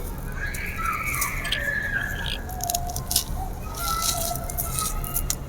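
Dry grey concrete mini slabs crumbling, with gritty crunches and crackles at irregular moments. Birds chirp in the background.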